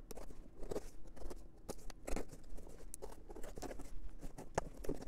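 A knife slitting the packing tape on a cardboard shipping box, with irregular crackles, clicks and scrapes as the tape and cardboard are cut and pulled apart.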